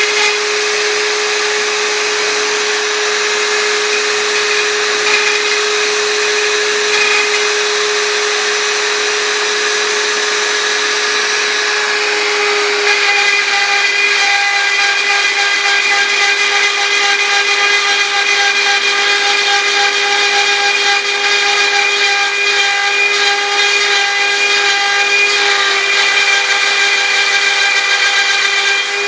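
Homemade CNC router's spindle running with a steady whine while milling. About halfway through, further whining tones join and it gets a little louder.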